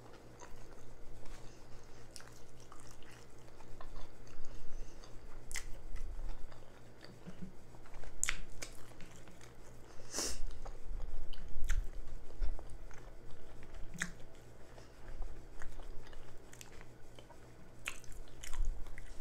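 Close-miked chewing and mouth smacking while eating loaded jalapeño cheddar sausage by hand, with scattered wet clicks; the loudest smack comes about ten seconds in.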